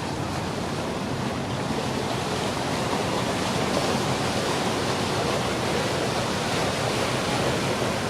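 Steady rushing noise of wind and water, growing a little louder over the first few seconds and then holding, with no distinct engine note.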